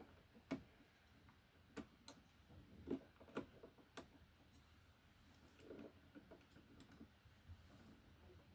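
Handling of electrical wires and a small plastic lever connector: a few sharp, irregular clicks and taps, most of them in the first half, over near silence.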